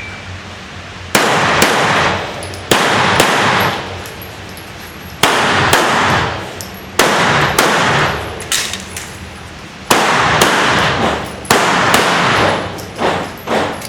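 Pistol shots fired in quick pairs about half a second apart, each crack followed by a fading echo, with pauses of one to two seconds between pairs as the shooter moves between positions during a timed action-pistol stage.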